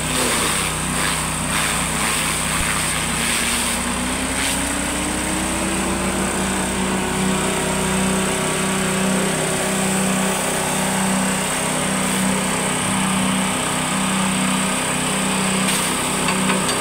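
Small engine driving a forage chopper, running steadily. In the first few seconds leafy stalks are being chopped, giving a rapid rough knocking, then the engine's pitch rises as the load comes off and it settles into a steady run.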